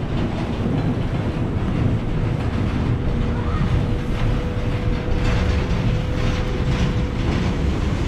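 Eiffel Tower elevator car running up its shaft: a steady low mechanical rumble with a faint, steady whine through most of it.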